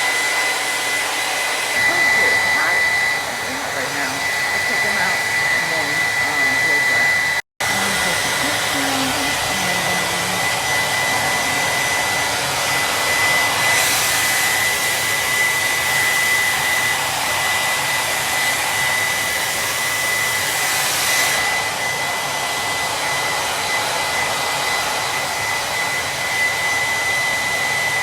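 Hand-held blow dryer running steadily, a rushing of air with a thin high whine over it. It cuts out for an instant about seven seconds in, and the air sounds brighter and hissier for several seconds midway.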